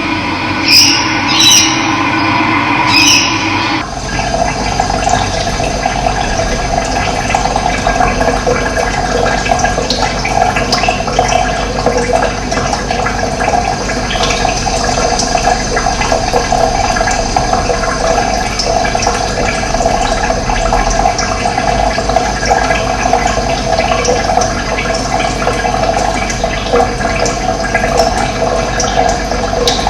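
Steady rush of running water. About four seconds in it abruptly replaces a different sound that carries several steady tones.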